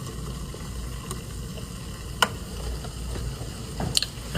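Diet Pepsi fizzing over ice in a cup, a soft steady hiss, with a couple of light sharp clicks.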